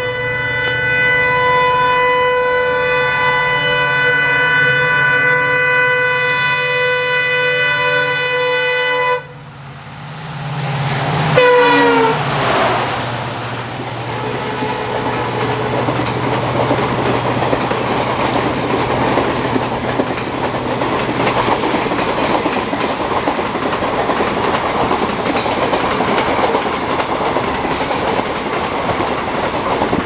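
WDP-4D diesel locomotive at full notch with its horn blaring in one long, steady multi-tone blast that cuts off about nine seconds in. A few seconds later a short horn blast drops in pitch as the locomotive passes close by. Then the engine fades, and the passenger coaches rush past with a steady wheel clatter.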